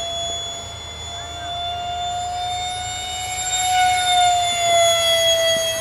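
Electric ducted fan of a Wings Maker J-10B model jet (a five-blade 70 mm fan on an outrunner motor) whining steadily in flight. The whine gets louder and a little higher in pitch around the middle, then drops back near the end.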